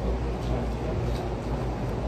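Indistinct background chatter of many people over a steady low hum.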